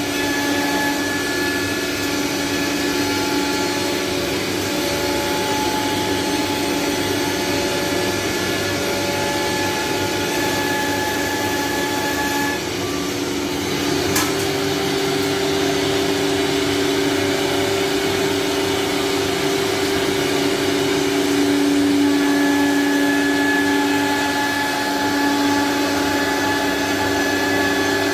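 Single-spindle CNC wood router with a vacuum hold-down table running: a steady whirring hum under several held whining tones that change pitch partway through, with a brief click about halfway.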